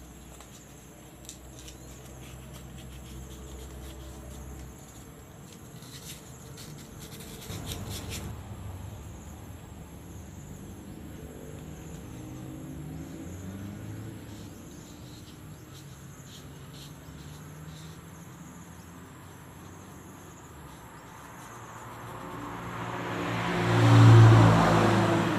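Sandpaper rubbing back and forth on an electric fan motor's rotor shaft, polishing a shaft left dry and stiff by a dried-out bearing. A motor vehicle's engine swells to the loudest point near the end.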